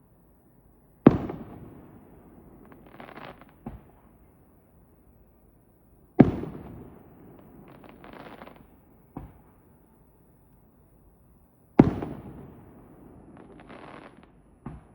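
Aerial firework shells bursting: three loud booms about five seconds apart, each trailing off in a rolling echo, followed by a brief crackling shimmer and a shorter, sharper bang.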